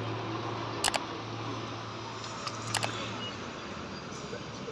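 Outdoor background noise with a steady low hum that stops about three seconds in, and two pairs of sharp clicks, the first about a second in and the second near three seconds.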